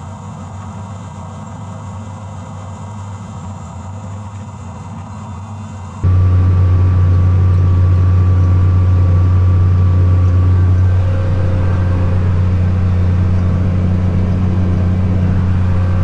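Tractor diesel engine running steadily under load while planting. About six seconds in, a cut brings a much louder steady drone: the Case IH MX240 Magnum pulling a field cultivator.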